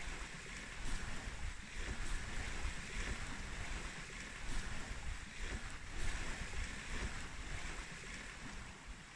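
Wind buffeting the microphone: a steady rushing noise over a fluttering low rumble, swelling in gusts about once a second.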